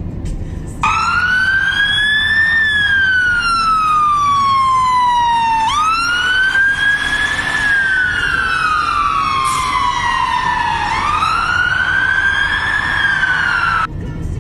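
Fire engine siren sounding a slow wail, three rising-and-falling sweeps that climb quickly and fall slowly. It starts about a second in and cuts off suddenly near the end, over low traffic rumble.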